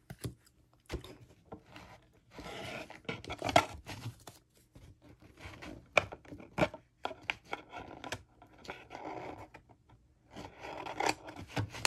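A Pokémon card being worked into a plastic card sleeve: card and plastic scraping and rubbing in several short stretches, with clicks and taps from handling between them.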